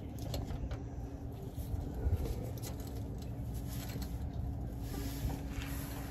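Small scratching and clicking handling noises as the front-differential 4WD actuator of a Dodge Ram 1500 is worked loose from its housing, over a low steady rumble.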